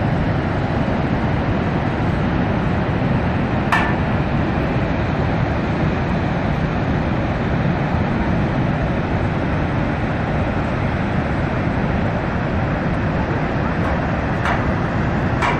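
Steady roar of a large waterfall and its churning plunge pool, a constant wash of water noise. A brief sharp click sounds about four seconds in, and two more come near the end.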